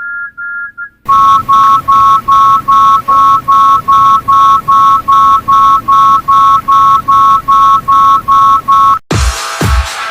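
Electronic low-battery alert beeping rapidly, about three even beeps a second: a quieter, higher-pitched series for the first second, then a louder, lower-pitched one. About nine seconds in, the beeping stops and dance music with a steady thumping beat starts.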